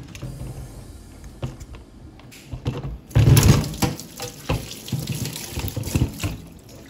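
Liquid spraying and splashing in irregular spurts as coil-cleaning chemical is sprayed onto an air conditioner's indoor unit. A loud bump comes about three seconds in.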